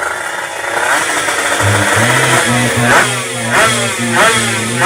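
Two-stroke underbone drag bike engines revved in sharp, repeated throttle blips, each a quick rising whine, over a steadier low engine drone that comes in about a second and a half in.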